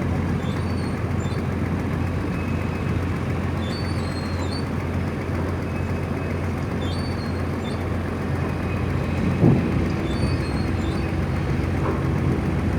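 Tugboat diesel engines running with a steady low drone. A brief knock comes about nine and a half seconds in.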